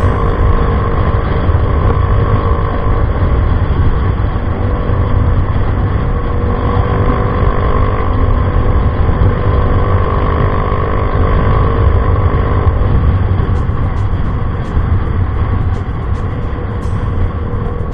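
Yamaha Mio i 125 scooter's single-cylinder engine running steadily through an Apido Pipe V3 aftermarket exhaust during a ride. The engine note holds at an even pitch, with only gentle drifts, over a heavy low rumble.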